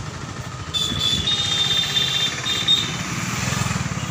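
Motorcycle engine running close by with a rapid low putter. About a second in, a shrill high steady tone joins for about two seconds, with short breaks.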